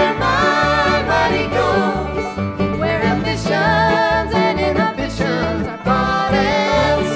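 Country-style backing song playing, an instrumental stretch with plucked strings over a steady beat.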